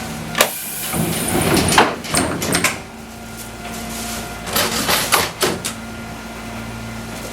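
Inside a Fukui Railway 200-series car, a steady low hum runs throughout. A sharp knock about half a second in is followed by a short burst of air hiss. Clusters of knocks and clatters come around two seconds in and again around five seconds in.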